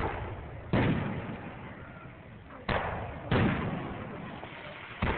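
Aerial fireworks shells bursting overhead: a boom about a second in, two close together near three seconds, and another near the end, each echoing away.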